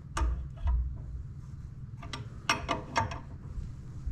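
Hand-tool work on a diesel turbocharger: a 17 mm wrench clicking and tapping against metal fittings as it is worked, in short separate clicks, with a few low thuds in the first second.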